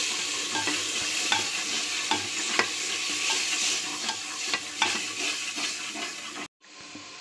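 Onions, green chillies and ginger-garlic paste sizzling in hot oil in a pressure cooker while a spatula stirs, scraping and knocking against the pot about every half second. The sizzle cuts off suddenly near the end, leaving a fainter steady hiss.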